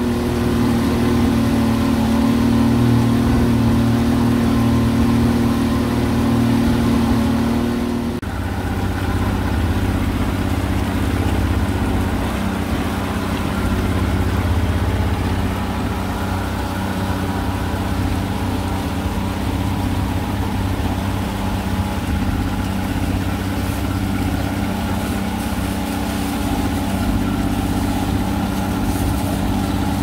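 Outboard motor running steadily, driving a wooden boat through the water. Its note shifts about eight seconds in, then holds steady again.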